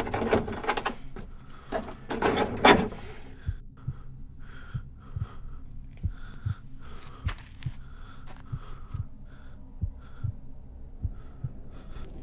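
A metal hook latch on a wooden door rattled and worked by hand, then a slow, steady heartbeat thumping.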